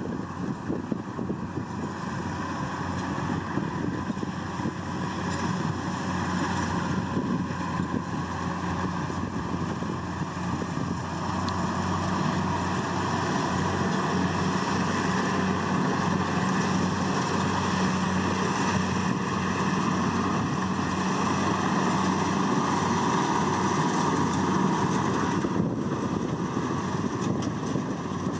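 Kubota DC70 Plus combine harvester's diesel engine and threshing machinery running steadily while it cuts rice, growing louder about halfway through as it comes closer.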